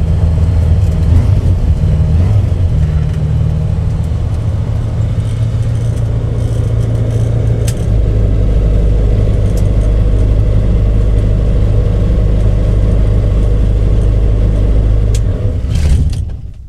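Light aircraft piston engine running at low power with the propeller turning while the ultralight taxis; about halfway through, the engine note drops and changes as the pilot works the ignition switches. Near the end the engine is switched off and runs down to a stop.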